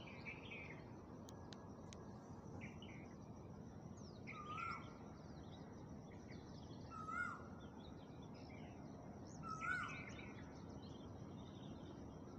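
Faint steady hiss of dough rolls deep-frying in ghee, with a bird repeating the same short call three times, about two and a half seconds apart, over scattered small chirps.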